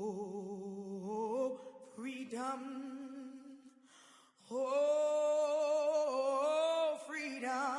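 A single voice singing unaccompanied, holding long notes with a wavering vibrato, with a brief pause about four seconds in.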